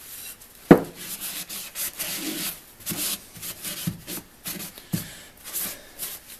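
Cloth rag rubbed back and forth over a wooden workbench top in repeated short strokes, about two a second, with one sharp knock less than a second in.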